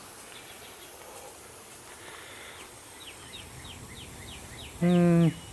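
A bird chirping outdoors: scattered short high chirps, then a run of short descending notes about three a second. Near the end, a man's short voiced hum, louder than the birdsong.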